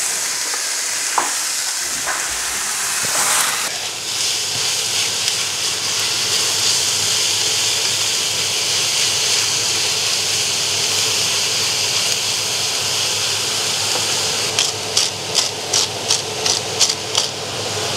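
Ground beef sizzling in a frying pan, a steady hiss. Near the end a quick run of short scraping strokes, about three a second, joins the sizzle.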